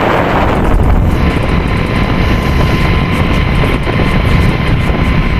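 Heavy industrial machinery running steadily: a loud, low rumble with a constant high whine over it.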